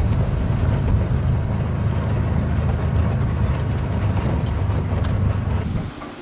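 Can-Am side-by-side UTV engine running steadily as it drives along a rough dirt track, heard from the driver's seat as a low drone. It cuts off near the end.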